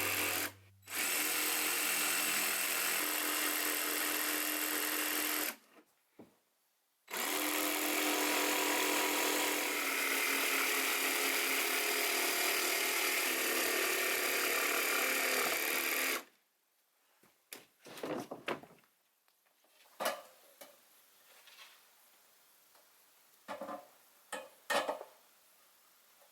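Power tool cutting wood in three long runs with brief pauses between, the cuts notching a log for a window opening. After that come a few scattered knocks and taps.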